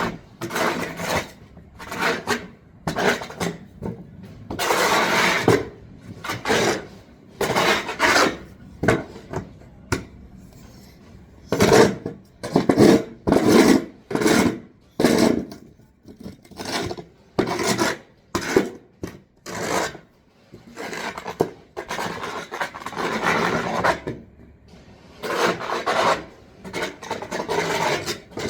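Shovel scraping over pavement in a long series of irregular rough strokes, each about half a second to a second long.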